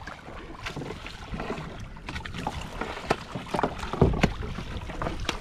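Small waves sloshing and slapping against a kayak hull on open sea, with scattered light knocks and a heavier thump about four seconds in.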